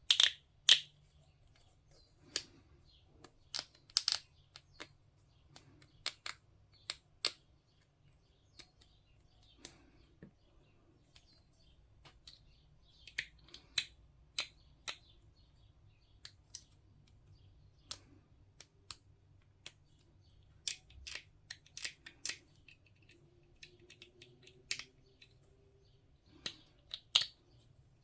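Hobby knife scraping mould lines off small plastic miniature parts: irregular short, sharp scrapes and clicks, a few every couple of seconds, with brief pauses between them.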